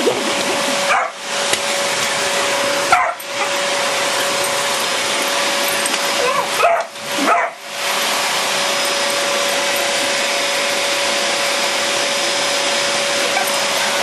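Vacuum cleaner running with a steady hum, its sound dipping briefly a few times in the first eight seconds, while a border collie yips and whines at it.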